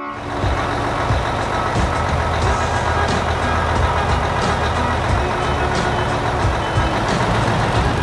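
Heavy diesel engine of a farm machine, a combine harvester, running steadily as it drives along, with a constant low rumble.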